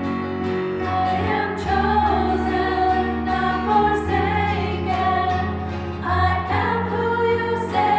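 Choir singing a hymn with instrumental accompaniment: slow, held sung notes over sustained low notes.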